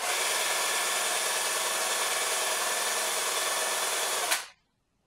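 Bosch GSR 12-2 cordless drill running at a steady speed, turning the rotor of a homemade magnetic generator coupled to its chuck. It starts abruptly and stops about four seconds in, with a click as it winds down.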